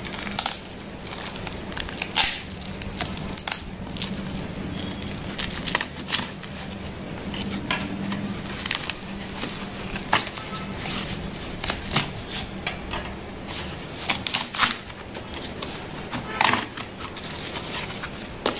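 A knife slitting the packing tape on a cardboard box, then the tape ripping and the cardboard flaps being pulled open, in a string of sharp, irregular crackles and tears.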